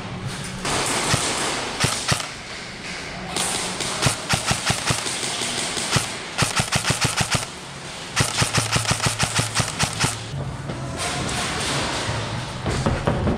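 Airsoft guns firing on full auto: a few single shots, then three long strings of rapid shots in the middle.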